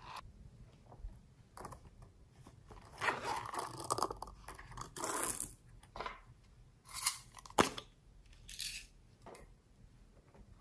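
Small plastic topping containers handled and pearl beads shaken out onto slime: irregular rattling, rustling bursts, with one sharp click a little past the middle.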